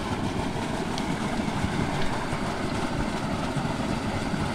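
Steady rushing of a small stream's water pouring into a muddy pool.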